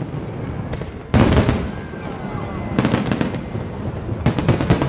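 Fireworks shells bursting overhead: a loud bang about a second in, more bangs near three seconds, and a rapid string of cracks near the end.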